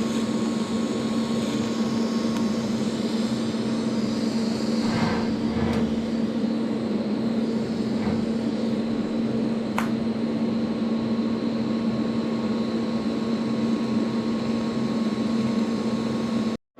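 TIG welding on cast iron: a steady arc hiss over the welding machine's constant hum, as weld is stacked up around a differential carrier's bearing seat. It cuts off abruptly near the end.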